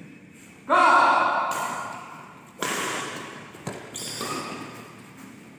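Badminton rally in an echoing hall: a loud shout about a second in, then sharp racket-and-shuttlecock hits and a knock, each ringing on in the room.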